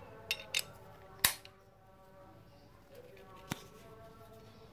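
Sharp metallic clinks of hand tools being handled, four in all, the loudest about a second in, with a faint ring after them.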